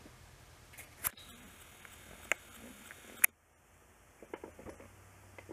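A few sharp clicks and knocks, the loudest about three seconds in, followed by scattered light taps.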